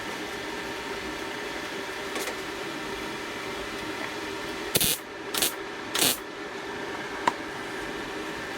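Welder laying tack welds on sheet-metal body panels: three short crackling bursts about half a second apart near the middle, with a fainter one earlier, over a steady background hum.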